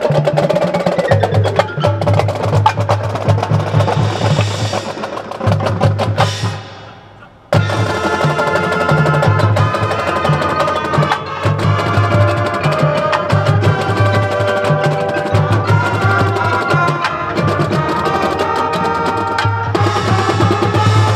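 A marching band playing: drumline and front-ensemble percussion keeping a steady beat under brass. About six seconds in the sound falls away almost to nothing, then the full band comes back in suddenly with held brass chords over the drums.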